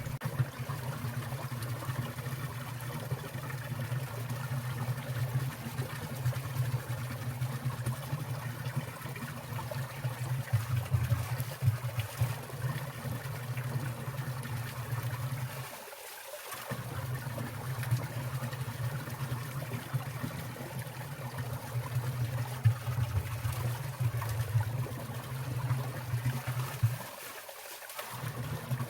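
Water trickling and falling in a winter mountain stream, with drips from icicles, running steadily. A low rumble under it cuts out briefly twice.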